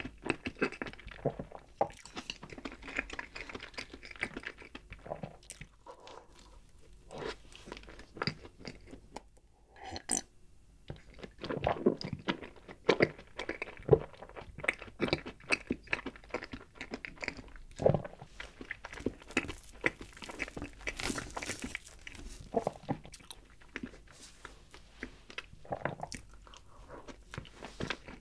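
Close-miked wet chewing and smacking of a mouthful of soft chocolate roll cake with Oreo cream filling, irregular and continuous, with a drink of milk from a glass around the middle.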